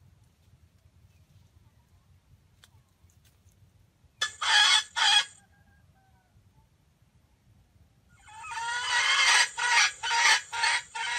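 A rooster calling loudly and close by: two short calls about four seconds in, then a longer crow from about eight seconds that swells and breaks into several pulses near the end.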